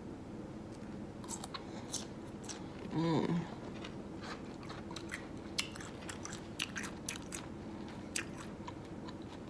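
Close-up biting and chewing of a crunchy grape Kool-Aid pickle, a dill pickle soaked in grape Kool-Aid, giving a run of sharp wet crunches. A short vocal sound from the eater comes about three seconds in.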